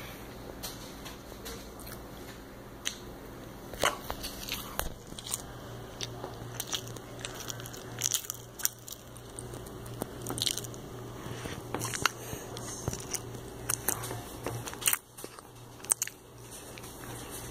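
A person chewing a peanut butter and jelly sandwich close to the microphone, with many short wet smacks and clicks from the mouth over a steady low hum.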